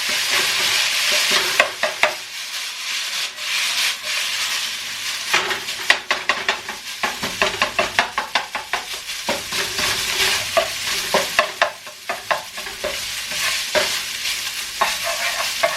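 Rice frying and sizzling in a non-stick wok while a utensil stirs and scrapes through it, mixing in soy sauce, with a rapid run of short scraping and tapping strokes over the steady sizzle.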